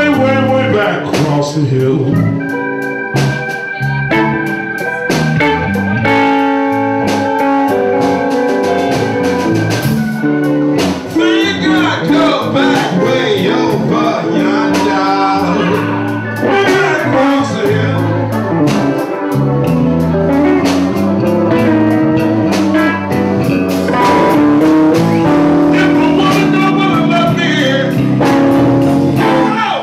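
Live blues band playing, with a guitar leading on held and bent notes over the rhythm section. The music stops abruptly near the end.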